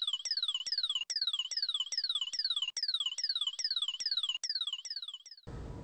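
Synthesized sound effect for radio signals passing between satellite, ground station and rocket antenna: a rapid series of electronic chirps, each falling in pitch, about two to three a second. It stops suddenly near the end, giving way to a faint hiss.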